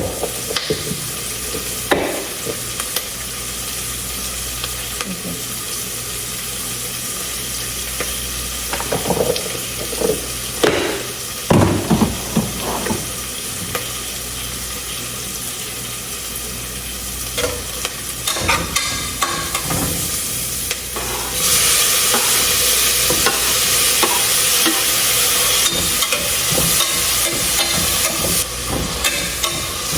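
Onion and curry leaves sizzling in hot coconut oil and ghee in a pan, stirred with a spoon that scrapes and knocks against the pan now and then. The sizzle grows louder about two-thirds of the way through.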